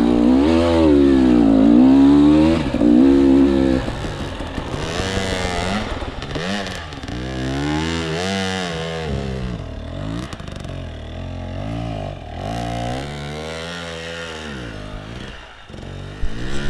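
KTM 300 two-stroke enduro motorcycle engine revving up and down again and again under throttle, loudest for the first four seconds and then a little quieter, with some clattering.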